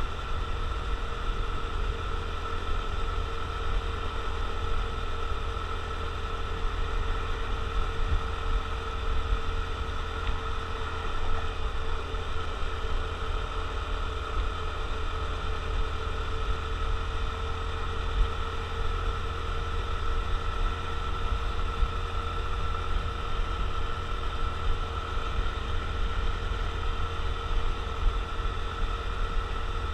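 Honda CT125 Trail Hunter Cub's 125 cc single-cylinder four-stroke engine running at a steady pitch while riding, with a low wind rumble on the microphone.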